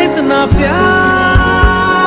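Background music: a slow Hindi film song, a voice holding one long note that slides up a little about half a second in, over soft, evenly spaced drum beats.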